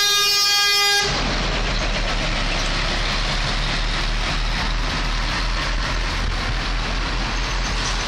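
A truck air horn blast that cuts off about a second in, followed by the steady rumble and road noise of truck tractors driving past.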